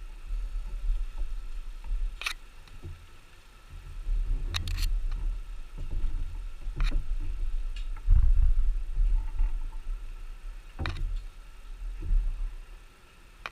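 Handling noise: a low rumble with about half a dozen sharp clicks and knocks at irregular moments.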